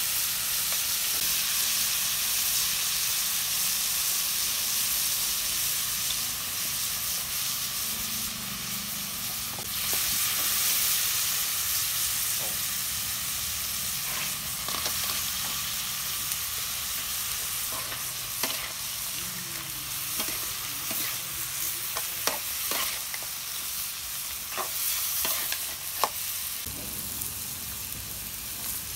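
Vegetables and aromatics frying in oil in a steel wok over an open fire: a steady sizzle, with a scatter of sharp pops and clicks in the second half.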